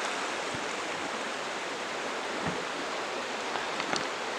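Steady rushing of a shallow, fast river running over rocks, with a few faint ticks.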